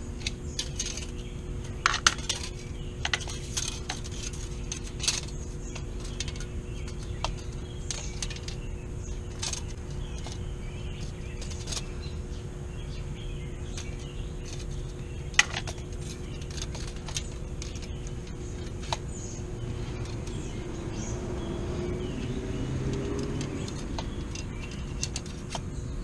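Scattered light metallic clicks and clinks from a Triumph Bonneville T120's rear drive chain being pushed up and down by hand to check its free play, over steady background noise.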